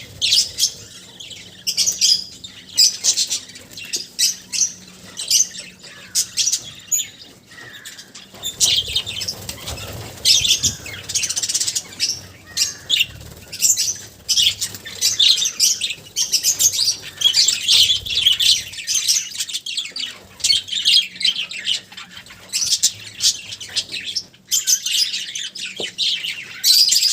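A flock of budgerigars chattering and chirping, many quick high calls overlapping without a break.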